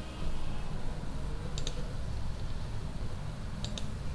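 Two computer mouse clicks, about two seconds apart, over a steady low hum.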